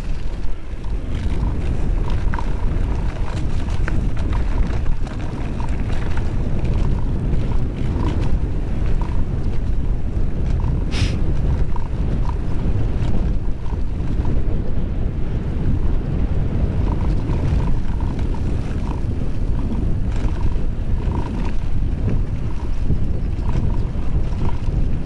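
Wind buffeting the on-board camera's microphone while a Calibre Bossnut mountain bike rolls fast over a chalk-and-grass double-track, with small ticks and rattles from the bike and one sharp click about eleven seconds in.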